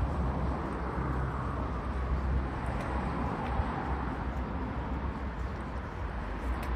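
City street ambience: the steady hum and hiss of road traffic passing.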